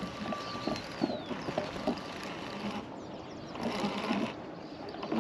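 Spinning reel being cranked to wind in line, a steady mechanical whir with light irregular ticking.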